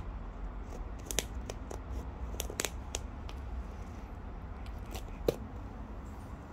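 Irregular light clicks and ticks, with a sharper knock about five seconds in, over a low steady hum.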